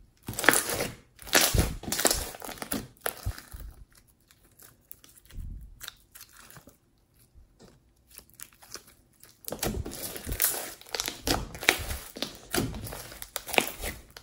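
Hands squeezing and kneading a lump of glossy slime: squelching with runs of quick clicky pops, thick for the first few seconds, sparse through the middle, and thick again over the last four or five seconds.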